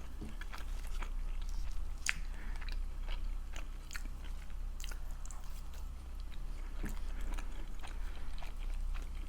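Close-miked chewing and biting of saucy barbecue chicken wings: many short, wet mouth clicks and smacks, over a steady low hum.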